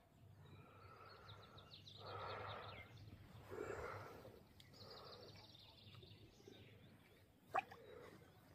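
Faint riverside quiet with distant small birds twittering, and a single sharp click about seven and a half seconds in.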